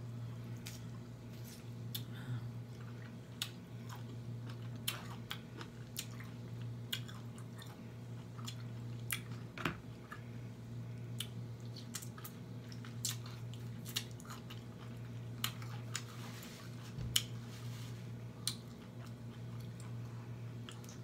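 Close mouth sounds of a person chewing and smacking food, with irregular wet clicks over a steady low hum.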